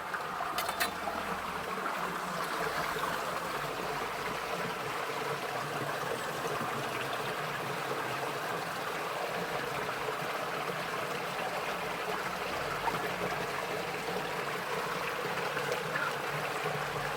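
A shallow river running over rocks: a steady rush and trickle of flowing water.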